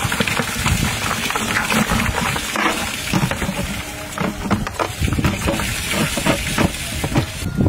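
Eggs and small lizards frying in a large metal wok: a steady crackle full of small pops and ticks.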